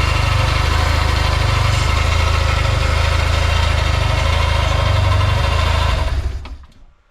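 BMW R1200C's boxer twin engine idling steadily, then switched off about six seconds in and quickly dying away. A few faint clicks follow.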